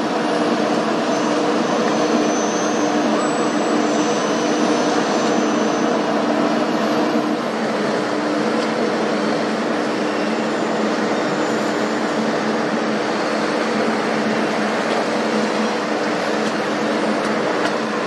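Diesel engines of a Vogele asphalt paver and an Ashok Leyland tipper truck running together as the truck unloads into the paver. The result is a steady, loud mechanical drone with a low hum, easing slightly in level partway through.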